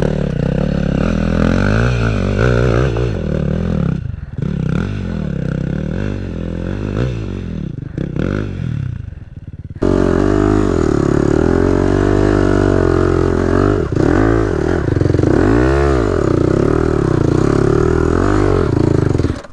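Dirt bike engine revving hard while climbing a steep, rocky hill, its pitch rising and falling as the throttle is worked. It dips briefly a couple of times, then runs louder and steadier from about halfway through.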